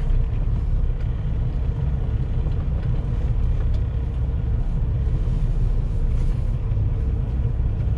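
Semi truck's diesel engine running steadily with a low rumble as the truck creeps forward at low speed, with a faint steady hum above it.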